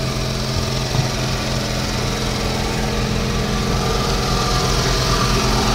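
A river tour boat's engine idling steadily, with an even low hum.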